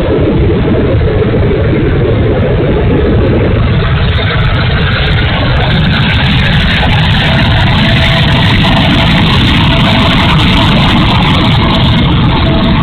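Heavy wind rumble on the microphone over the faint, steady whine of an RC model jet's twin electric ducted fans in flight.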